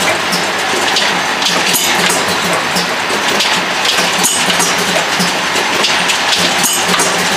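MZ-400ED filling and capping monoblock running: a steady, dense noise full of small, quick clicks from the machine's mechanisms and the small glass vials moving on its rotary table.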